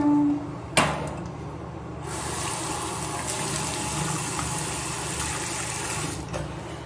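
Bathroom basin tap running, with water splashing from cupped hands as they rinse the mouth and face, for about four seconds before it is turned off. Before the water starts there is a single sharp knock, about a second in.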